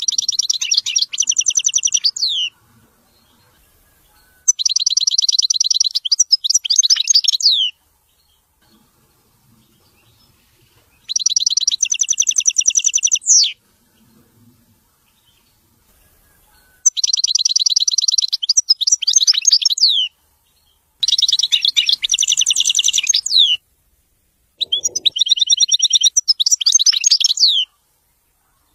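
European goldfinch singing in six bursts of about two to three seconds each, with short pauses between. Each burst is a fast run of high twittering notes that ends in a few quick downward-sliding notes.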